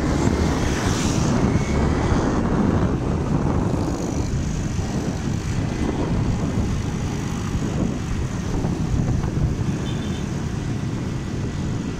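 Motorcycle riding at road speed, heard from on board: steady low engine noise mixed with wind rushing over the microphone.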